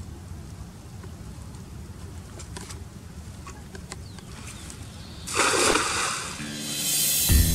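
Steady low outdoor background noise with faint clicks, broken about five seconds in by a loud rushing burst lasting about a second; background music starts near the end.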